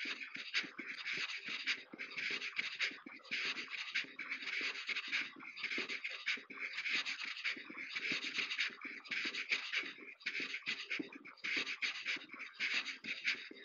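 Footsteps of someone walking steadily over a loose, crunchy surface such as gravel, about three steps every two seconds.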